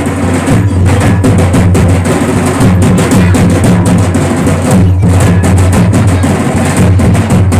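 Procession drums, slung drums beaten by hand, played in a fast, steady rhythm with a heavy, booming low end.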